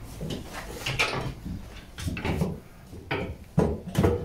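Several separate metal clinks and knocks as hand tools and steering and suspension parts are worked on a bare car chassis.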